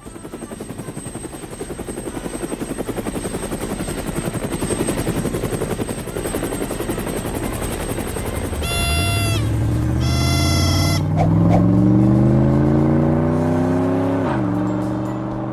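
Cartoon helicopter rotor sound effect: a fast, even chopping that grows louder over the first half. Then two short horn-like beeps, and a vehicle engine revving up, rising steadily in pitch before dropping sharply near the end.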